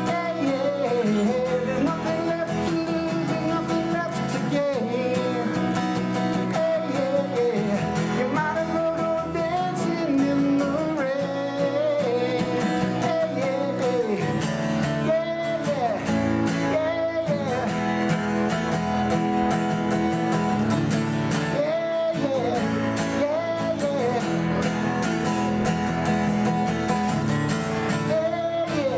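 Live acoustic guitar and a man's singing voice: a solo performer singing a song while strumming an acoustic guitar.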